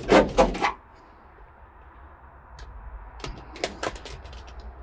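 Foil-backed butyl sound-deadening mat handled and pressed down by hand: scattered light clicks and crinkles over a faint low hum, after a brief loud sound right at the start.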